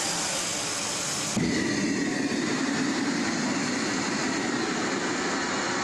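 Wok cooking over a gas burner: a high, hissing sizzle, then about a second and a half in, a steadier, lower roar takes over and runs on.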